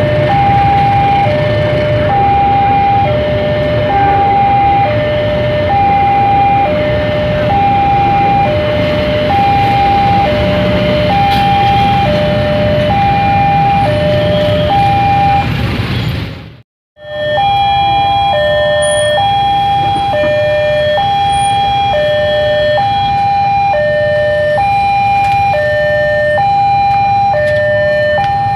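Railway level crossing warning alarm sounding a steady alternating two-tone signal, high then low, about one pair a second, over the low rumble of a passing passenger train. The sound drops out briefly just past halfway, then the alarm carries on.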